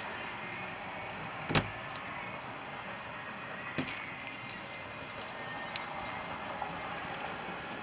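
A sharp knock about a second and a half in, a lighter knock near four seconds and a couple of faint ticks later, over a steady hiss.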